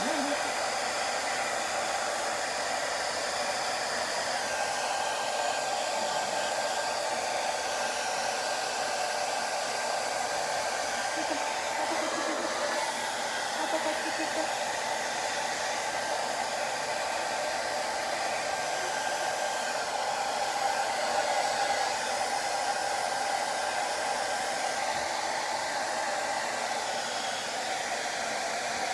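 Handheld hair dryer blowing steadily, an even rushing hiss with a constant tone underneath, while a dog is blow-dried.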